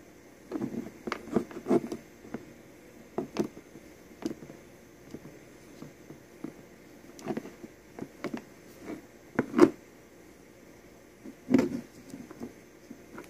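Scattered, irregular clicks and knocks of a Bosch 14.4 V drill battery pack and its hard parts being handled and taken apart, with louder knocks about ten and twelve seconds in.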